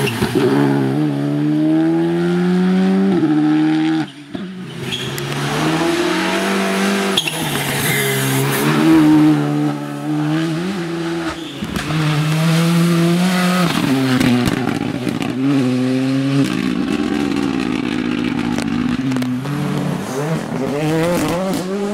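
Rally cars, a Škoda Fabia and a Ford Fiesta among them, driven flat out on a tarmac stage: engines revving up and dropping sharply at each gear change, over several cut-together passes.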